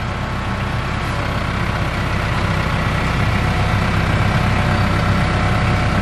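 TYM compact tractor's diesel engine running as the tractor drives off, growing gradually louder.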